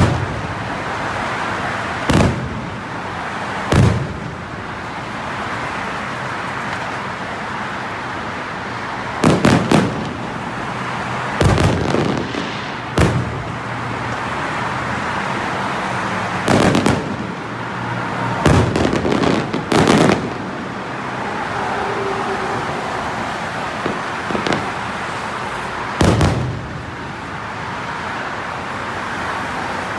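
Aerial firework shells bursting overhead: a series of sharp, loud booms a few seconds apart, some coming in quick pairs, over a steady background noise.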